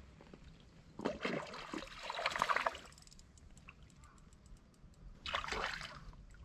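Water splashing in two bursts, a longer one about a second in and a shorter one near the end, from a hooked bass thrashing at the surface while it is played on a bent spinning rod.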